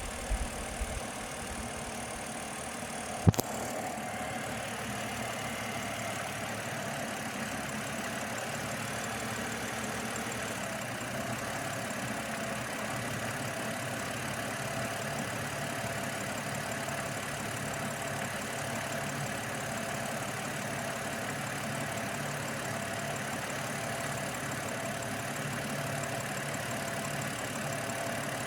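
BMW 730Li engine running at a rough idle after VANOS recall work, with a steady low pulsing throughout. One sharp click about three seconds in is the loudest sound.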